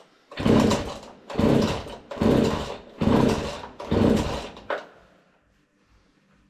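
Husqvarna 40 two-stroke chainsaw being pull-started: five quick yanks of the recoil starter cord, about one a second, each a short rasping whir as the engine turns over, with a short click just after the last one. The engine does not catch.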